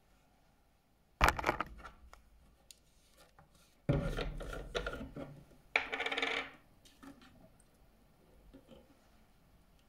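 A small plastic reagent bottle handled on a bench: three sharp knocks, about a second, four seconds and six seconds in, the later two followed by a short scraping rattle, as its red plastic screw cap is twisted off and set down.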